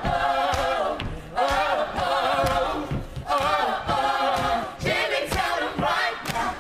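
A choir singing a cappella in short phrases, with brief breaks between them.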